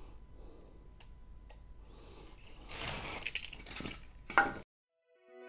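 Large utility knife cutting through extruded polystyrene foam board (Styrodur), a faint scratchy scraping that grows louder about three seconds in, with a short sharp crack a little after four seconds.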